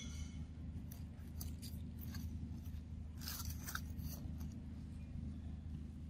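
A few short, dry crackles and snaps, most of them bunched together about three seconds in, over a steady low hum.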